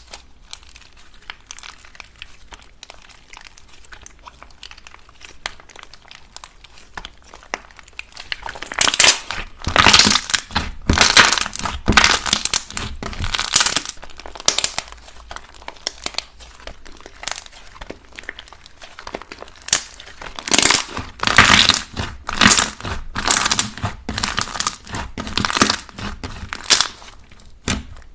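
Hands pressing and squishing slime close to the microphone, making dense runs of rapid crackles. It is soft for the first several seconds, then comes in louder bouts.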